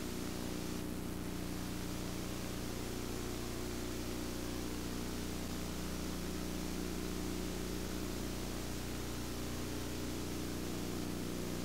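Steady machinery hum of the space shuttle crew cabin, its fans and equipment running, with several low steady tones under an even hiss.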